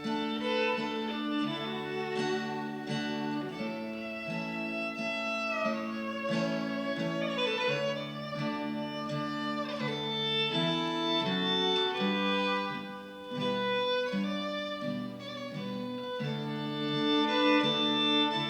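Fiddle and acoustic guitar playing an instrumental passage of the song's melody: the fiddle carries the tune, with slides between notes, over guitar chords.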